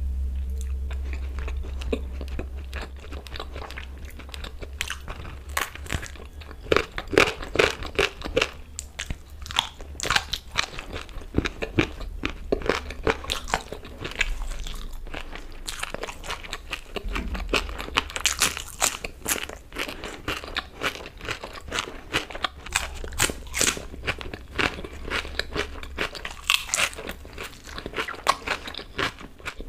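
Close-miked eating sounds: a person chewing a mouthful of food with the mouth closed, a continuous run of irregular wet clicks and crunches, over a low steady hum.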